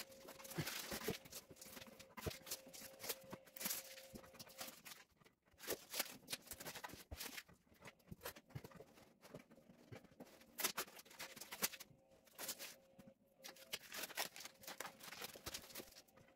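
Scattered light clicks and taps at an irregular pace, with a faint steady tone behind them in places.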